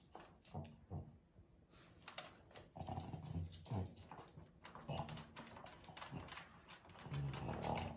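A pug's nails clicking on a wooden floor and on the plastic grid of a pee-pad tray as she paces and circles before peeing, with short snuffling snorts at her nose, the loudest near the end.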